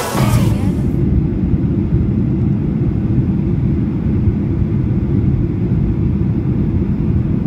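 Steady low rumble of jet airliner cabin noise heard from a seat over the wing: engines and airflow in flight. The music cuts out at the very start.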